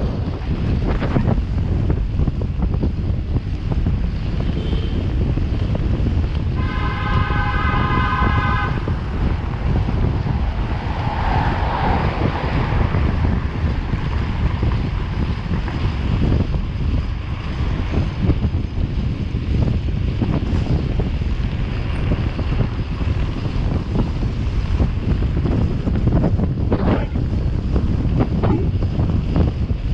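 Wind buffeting the microphone on a moving bicycle, a steady low rumble throughout. A horn sounds once, steadily for about two seconds, around a quarter of the way in.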